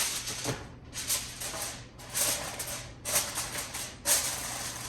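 Aluminium foil crinkling in a run of short rustles as it is wrapped and pressed over a baking pan to cover it.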